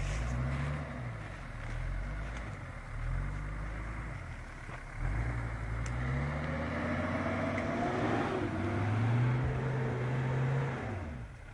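Off-road 4x4's engine revving up and down again and again under load in deep snow, with a higher whine rising and falling past the middle.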